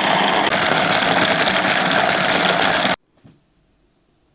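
NGT electric bait chopper running, its motor and blade chopping thawed tiger nuts with a steady whirr, then cutting off suddenly about three seconds in, followed by a small click.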